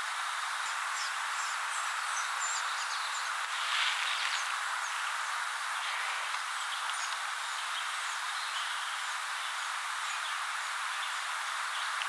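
Woodland ambience: a steady hiss with faint, high bird chirps scattered throughout, and a brief louder rustle about four seconds in.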